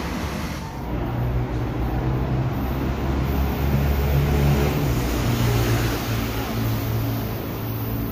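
São Paulo Metro train approaching round a curve: a steady low rumble with a deep hum, swelling in the middle and easing slightly near the end.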